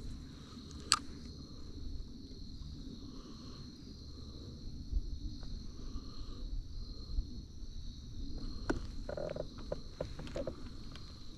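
Insects trilling steadily on a high pitch over a low rumble, with one sharp click about a second in and a few light knocks near the end.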